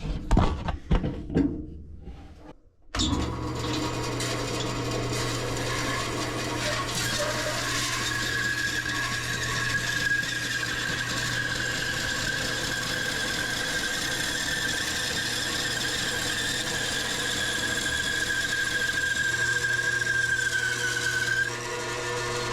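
A Delta 28-206 14-inch bandsaw running with a new Timberwolf half-inch blade, cutting through a thick block of wood. After a few seconds of handling sounds the saw comes in suddenly with a steady hum. A steady high whine runs through most of the cut and stops shortly before the saw goes quiet.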